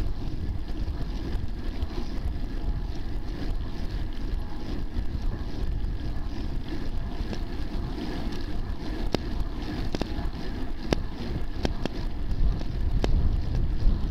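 Wind buffeting the microphone of a bicycle-mounted camera while riding, over steady tyre and road noise, with a few sharp clicks or rattles in the second half. Near the end it grows louder as a car comes up from behind.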